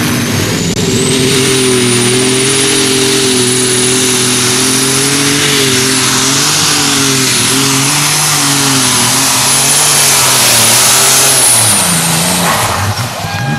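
Light modified pulling tractor's engine held at full throttle during a pull. The deep engine note wavers slightly under load, with a thin high whine above it that rises in the first second or so and then holds. About twelve seconds in, the engine note drops away and the whine stops as the run ends.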